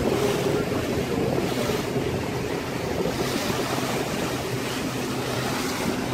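Wind and choppy sea water splashing around a fishing boat, with wind buffeting the microphone and the boat's engine running at a steady low hum underneath.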